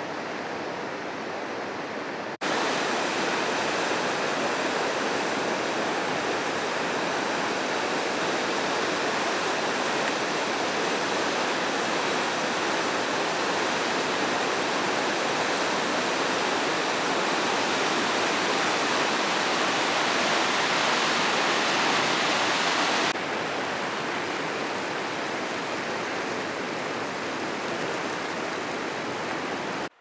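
Köprüçay River rushing through rapids: a steady rush of water that jumps louder about two and a half seconds in and later drops a little, losing some of its hiss.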